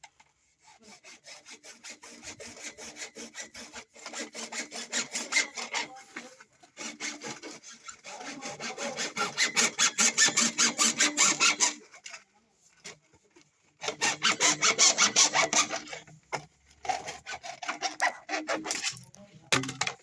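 Hand saw cutting with quick, regular back-and-forth strokes, in several spells broken by short pauses.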